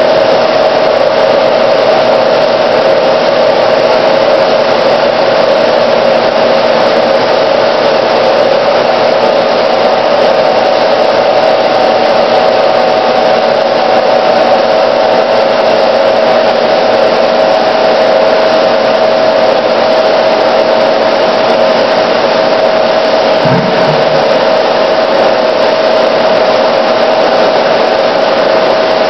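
Froth flotation cell machinery running: a loud, steady drone with a constant mid-pitched whine.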